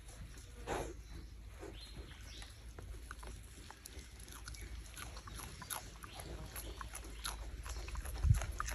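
Wild boar snuffling and chewing at leafy bait, with a short grunt about a second in and small crackles of leaves throughout. A steady low rumble lies underneath, and a couple of low thumps come near the end.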